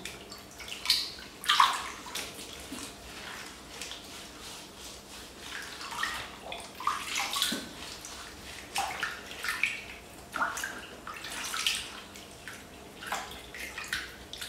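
Water splashing and sloshing in a plastic basin as a baby monkey is washed by hand in herbal bathwater: irregular small splashes.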